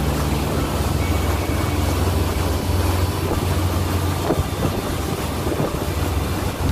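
Motorboat engine running steadily under way, a constant low rumble mixed with wind buffeting the microphone and water rushing past the hull.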